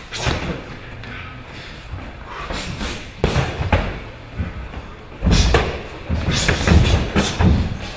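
Gloved punches landing on pads and gloves in Muay Thai sparring: a run of sharp thuds, a few at first and then a quick flurry over the last three seconds, in a large hall.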